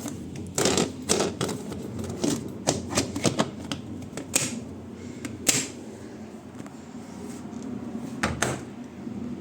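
A series of irregular sharp clicks and knocks, bunched in the first five seconds with one more near the end, from an LG washing machine's controls being pressed and turned as it is switched on.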